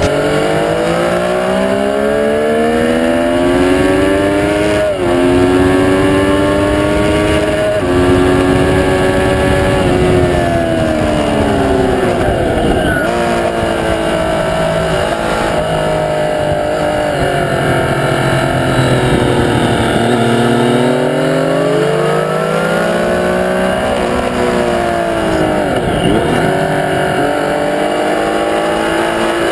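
Triumph Street Triple R's three-cylinder engine at full throttle on track, its note climbing through the gears with short breaks at upshifts about five and eight seconds in, then dropping under braking and rising again out of the corners, over steady wind rush.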